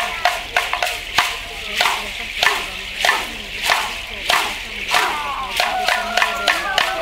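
Traditional Tongoa dance troupe beating out a rhythm of sharp strikes, with a rattling hiss between them. The strikes come about three a second at first, slow to roughly one every half-second to second through the middle, then quicken again. Voices call out in wavering pitches near the end.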